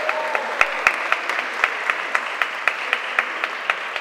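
Audience applauding: a dense, steady clatter of many hands, with single sharper claps standing out all through.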